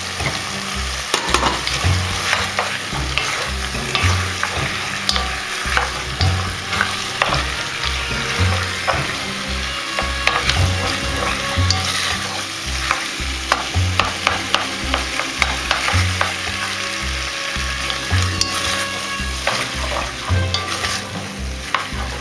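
Wooden spoon stirring and scraping boiled penne and sliced potatoes around a pot, with a steady sizzle of frying underneath and frequent small clicks and knocks of the spoon against the pot.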